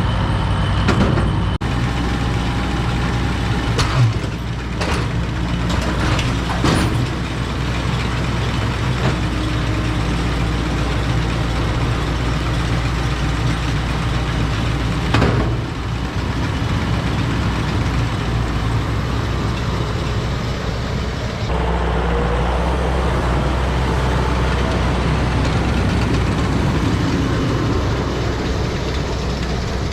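Farm tractor engine running steadily under work, with a few short knocks in the first half and an abrupt change in the sound about two-thirds of the way through.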